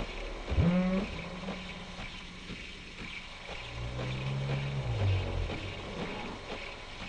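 Experimental electronic soundtrack over a steady hiss: a low pitched tone swoops sharply upward about half a second in, and another low tone rises about three and a half seconds in and slides down near five seconds.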